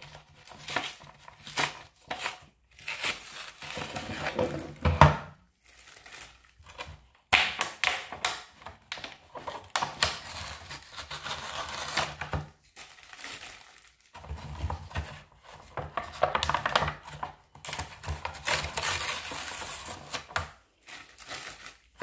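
Cardboard backing card being torn and peeled off a plastic blister pack by gloved hands: irregular ripping and scraping in bursts with short pauses, and one sharper knock about five seconds in.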